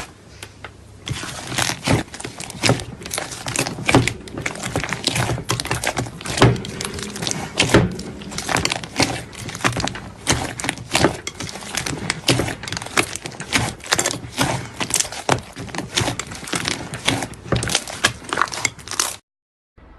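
Slime being squeezed and handled, giving a dense, irregular run of crackling clicks and pops that stops suddenly near the end.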